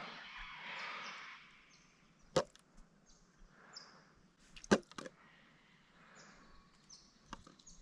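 A silver perch being landed on the riverbank: a short hissing splash fades out, then come two sharp knocks a couple of seconds apart.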